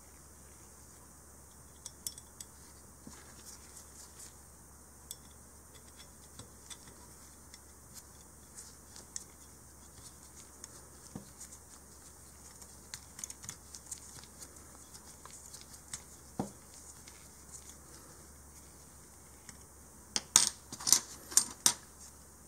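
Light metal clicks and taps of a hex key and aluminium replica stock parts being handled while the stock's pivot bolt is turned, followed near the end by a quick run of louder sharp metal clacks.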